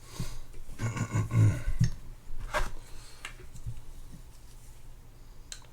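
Hands working on a disassembled spinning reel: a loud, low rubbing and scraping of parts about one to two seconds in, followed by a few scattered clicks of small metal parts and tools.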